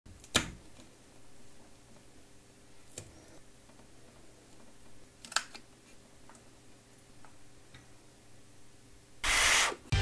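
Scattered sharp clicks and light taps, a double click about five seconds in, then a loud hiss lasting about half a second near the end.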